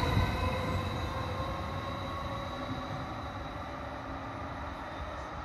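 Südostbahn Stadler FLIRT electric multiple unit pulling away: its running rumble and steady electric whine fade steadily as the train recedes down the line.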